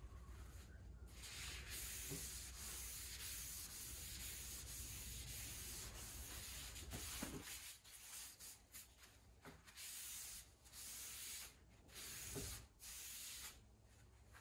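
Hand rubbing over the wooden top of a cedar chest: a soft, continuous rubbing hiss for several seconds, then a run of shorter, separate strokes.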